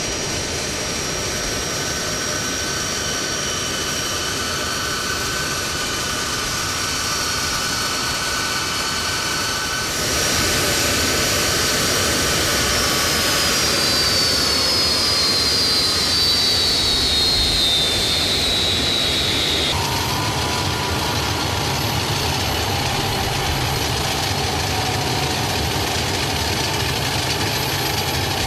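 Four turbofan jet engines of a C-17 Globemaster III running at low power: a steady whine over a broad rushing noise. Midway, a high tone falls steadily in pitch for several seconds. The sound changes abruptly twice, after which a lower hum with a fainter whine continues.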